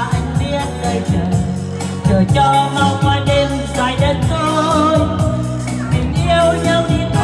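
Live band music: a woman singing into a microphone over keyboard backing with a steady dance beat, played loud through a PA. The music gets a little louder about two seconds in.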